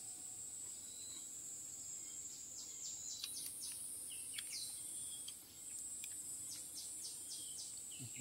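Forest insects droning steadily at a high pitch, with short high chirps scattered through. The drone drops out briefly about five and a half seconds in.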